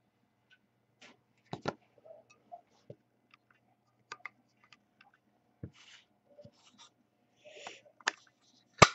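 Soft clicks and rustles of a trading card being handled and fitted into a clear plastic card case, with one louder, sharper click near the end.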